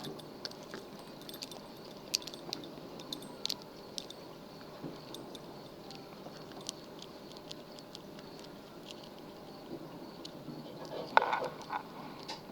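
Lock pick and tension wrench working the pins inside a lock: faint, scattered small metal clicks and scratches as the pick is jabbed at the pins, with a louder clatter about eleven seconds in.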